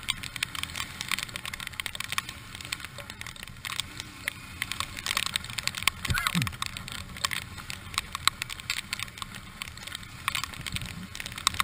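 Rain ticking irregularly on a helmet-mounted camera, over the low, steady running of a motorcycle engine riding through rain. A short downward-sliding tone comes about six seconds in.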